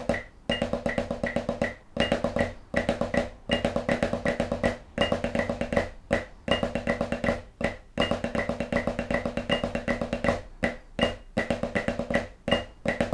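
Snare drum played with sticks in Swiss Army triplets, a flam-based triplet rudiment, at quarter note = 160: fast strokes in repeating groups with short breaks. A metronome clicks on every beat, with a higher click on each downbeat.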